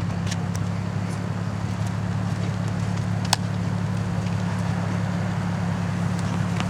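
Car engine idling with a steady low hum, and a single sharp click about three seconds in.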